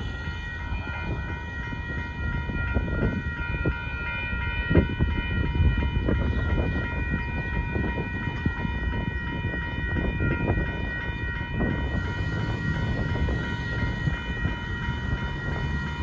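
Railroad grade-crossing warning bell ringing as one steady, ringing tone over the low rumble and occasional knocks of a passenger train moving away down the track. The bell cuts off suddenly near the end as the crossing signals shut off.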